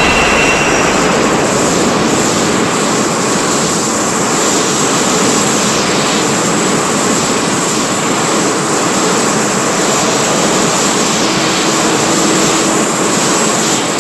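Loud, steady rushing roar like a jet engine: a monster sound effect with no pitched call in it.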